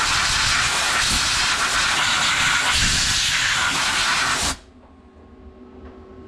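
Compressed-air blow gun giving a loud, steady hiss as it blasts aluminium chips off machined parts in a mill's fixture. The air cuts off suddenly about four and a half seconds in.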